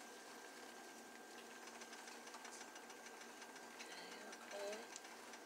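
Near silence: faint room tone with a thin steady high hum and soft hiss.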